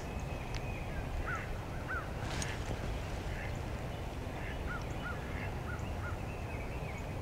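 Short quacking calls, two about a second in and a quick run of four a few seconds later, over a steady low rumble of wind on the microphone.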